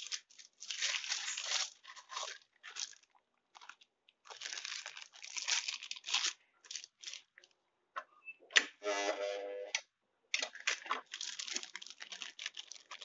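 Plastic bags of durian flesh crinkling and rustling in irregular bursts as they are handled and set into an impulse plastic film sealer. There is a short buzz about nine seconds in.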